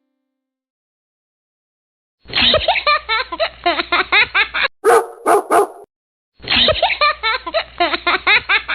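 A dog barking, starting about two seconds in: a run of rapid yapping barks, three louder sharp barks in the middle, then another run of rapid yaps.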